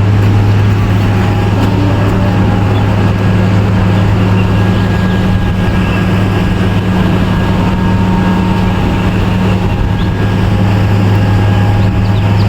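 Steady loud roar of a large waterfall, with a low steady hum running under it.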